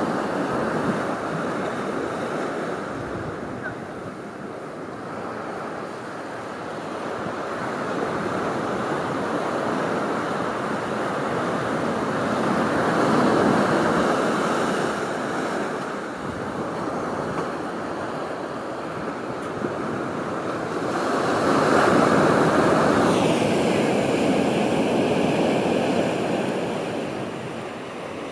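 Pacific Ocean surf breaking and washing up a sandy beach: a continuous wash of water that swells louder twice, about halfway through and again about three-quarters of the way in.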